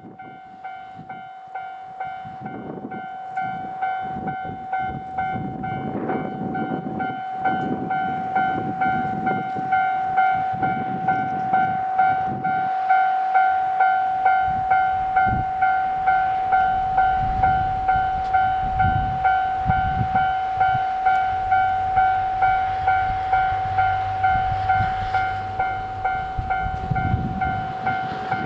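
Japanese level-crossing warning bell ringing over and over, about two strikes a second, with a steady ringing tone under the strikes. It grows louder over the first dozen seconds, and irregular low rumbling comes and goes beneath it.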